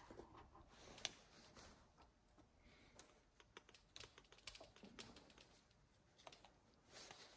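Faint, scattered light clicks and taps of small metal parts being handled by hand: a washer and seal being fitted onto a motorcycle shock's parts. One sharper click about a second in.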